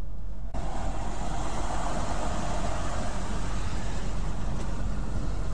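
Steady road noise inside a semi-truck cab at highway speed: a constant low drone with tyre and wind hiss. It turns suddenly louder and brighter about half a second in.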